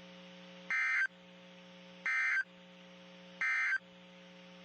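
NOAA Weather Radio sending the Emergency Alert System end-of-message code: three short, identical warbling data bursts about 1.3 seconds apart, marking the end of the alert. A steady low receiver hum fills the gaps between them.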